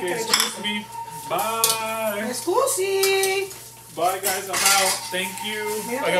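Spatula scraping and clinking against a wok as fried rice is stir-fried, with repeated short knocks of utensil on pan.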